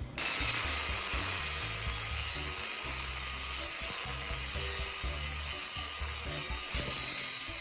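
Angle grinder running against metal, a steady high grinding hiss that starts abruptly just after the beginning, over background music.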